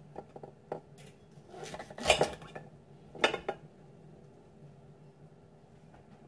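Clinks and knocks of a knife and asparagus spears against a ceramic plate as the spears are handled, with two louder clatters about two and three seconds in, then only faint handling.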